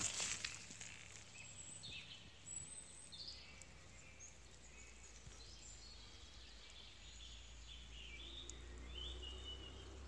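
Faint forest ambience with scattered short bird chirps over a steady low rumble. A couple of scuffs come right at the start.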